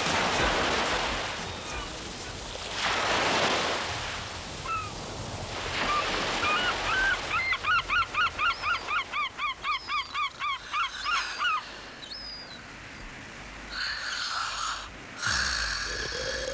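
Waves washing in, then a bird calling a fast run of short honking notes, about four a second, for some four seconds, with further washes of surf near the end.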